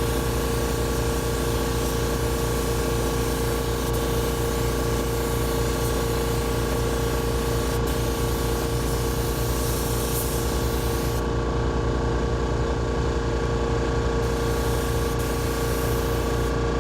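Automotive paint spray gun hissing as it sprays a coat onto a car bumper. The hiss stops for about three seconds partway through and briefly again near the end as the trigger is let off. A steady machine hum runs underneath.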